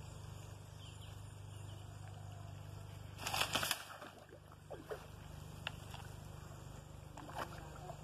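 A green iguana bolts off dry palm fronds and drops into pond water. About three seconds in there is a sudden, short rush of rustling and splashing, followed by a few faint knocks.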